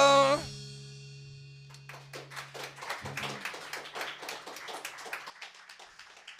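The band's final note slides downward and cuts off, leaving a low held tone ringing out. About two seconds in, a few people start clapping and keep applauding.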